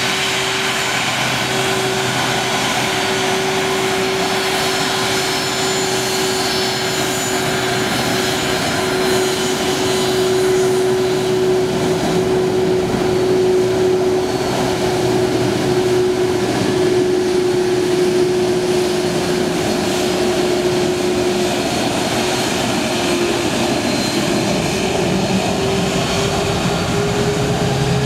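Boeing 767's twin GE CF6 turbofan engines running at taxi power: a steady jet whine over a broad rushing noise. The whine sinks slowly, then rises in the last few seconds as the engines start to spool up.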